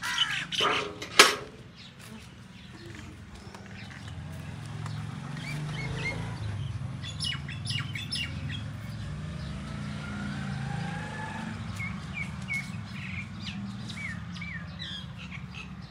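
Small birds chirping in short bursts over a steady low rumble, with one sharp knock about a second in.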